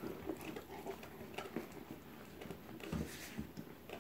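A Rottweiler gnawing and nosing at a toy football to get a treat out of it: faint scattered clicks and scuffs of teeth and muzzle on the ball, with a soft thump about three seconds in.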